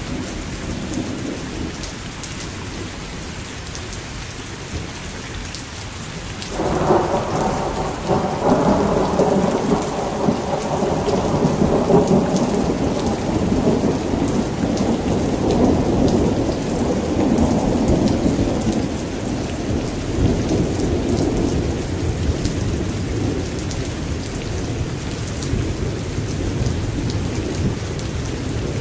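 Steady rain with a roll of thunder that breaks suddenly about seven seconds in, swells, then slowly rumbles away over the next twenty seconds.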